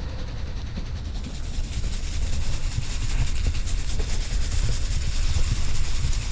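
A steady low rumble that grows slowly louder.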